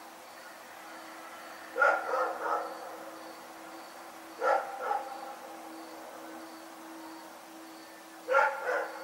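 Dog barking in three short bouts of two or three barks each: one about two seconds in, one near the middle and one near the end.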